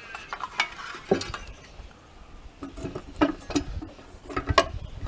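Scattered sharp metallic clicks and knocks, some with a brief ring, from a circular saw being handled and its blade depth adjusted so the blade sits below the table.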